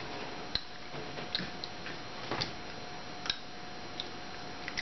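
Faint, irregularly spaced clicks and smacks of mouths chewing Bean Boozled jelly beans, over a steady faint hum.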